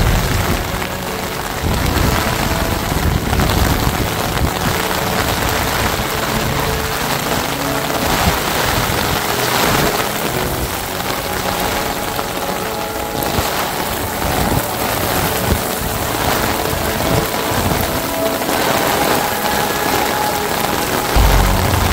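Heavy typhoon rain pouring and spattering on hard surfaces, a steady loud hiss. Wind gusts buffet the microphone with a low rumble at the start and again near the end.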